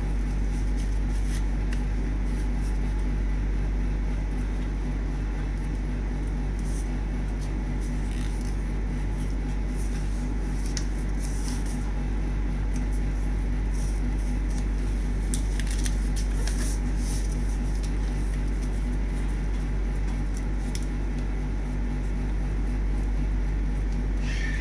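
A steady low background hum throughout, with faint crisp rustles and creasing of paper as a sheet of origami paper is folded and pressed flat by hand.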